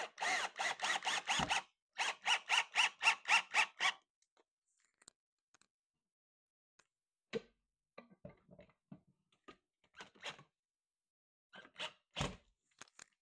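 Cordless drill/driver driving screws into a wall shelf bracket, in two runs of rapid pulsed bursts, about six a second, over the first four seconds. Then small clicks and knocks of tool handling, with a sharper knock near the end.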